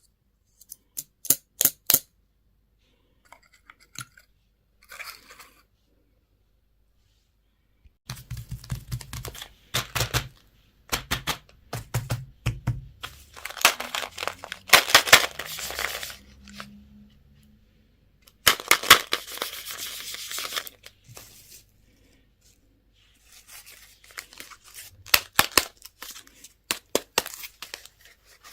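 Candy and toy wrappers being torn open and crinkled: bursts of sharp crackling and tearing with short pauses between them.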